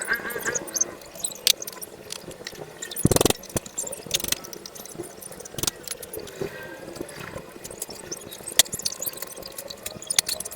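Scattered metallic clicks and clinks of tools and engine parts being handled, with a louder knock about three seconds in.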